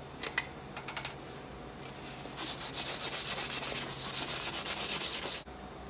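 Scratchy rubbing on a freshly welded aluminum pipe. It starts after a few light clicks and handling knocks, runs in uneven strokes, and stops suddenly near the end.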